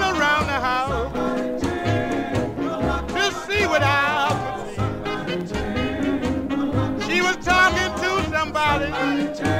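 Rhythm-and-blues vocal group record playing: harmony singing over a band with a steady beat.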